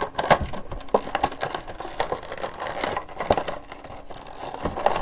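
Plastic packaging insert and cardboard box crinkling and scraping with irregular clicks as a Funko Pop vinyl figure is worked out of its box.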